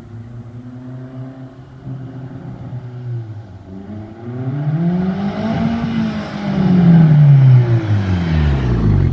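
Audi A4 B6's turbocharged 1.8-litre four-cylinder engine running steadily, then rising in pitch about four seconds in and falling back down over the last few seconds, with its newly fitted used turbocharger.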